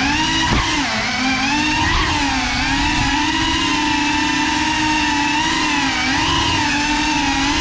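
Small FPV quadcopter's electric motors and propellers whining, the pitch rising and dipping as the throttle changes.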